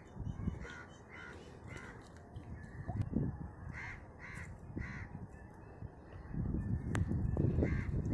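Crows cawing over and over in short runs of two or three calls. From about six seconds in, water sloshes and splashes more loudly as a cast net is hauled in by hand through shallow water.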